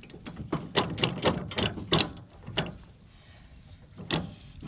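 A run of sharp metal clicks and clinks, about eight in two and a half seconds and one more near the end, from the steel drop-hitch shank and receiver being worked by hand.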